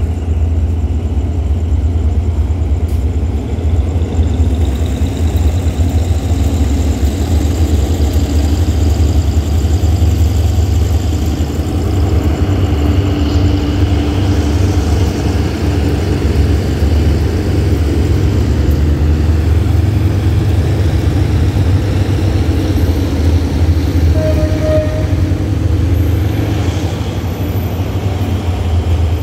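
Freight train of tank cars hauled by two GE diesel-electric locomotives working in multiple as it pulls out, giving a steady low engine rumble mixed with the rolling of the wagons.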